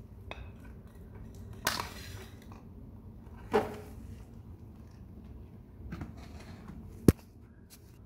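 Hard plastic knocking and clattering on a tiled floor as a baby monkey climbs over a plastic stool and pushes its plastic toy car: about five separate knocks, the sharpest and loudest a click about seven seconds in.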